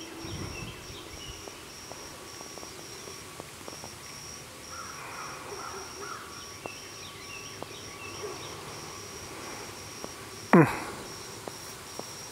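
An insect chirping steadily in a high, pulsing trill, about four pulses a second, with faint bird chirps midway. About ten and a half seconds in, a sudden loud swish sweeps downward in pitch and cuts off.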